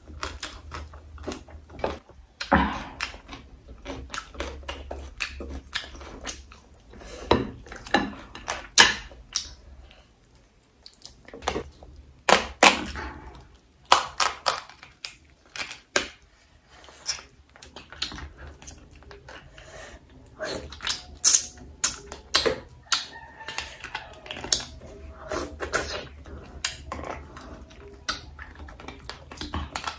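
Eating sounds: chewing and mouth smacking, mixed with sharp cracks and snaps as fried crab is pulled apart by hand, in a quick, irregular series of clicks.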